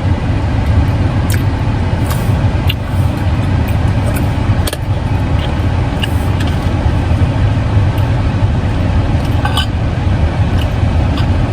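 Steady low rumble of a car heard from inside the cabin, with a few faint ticks and clicks.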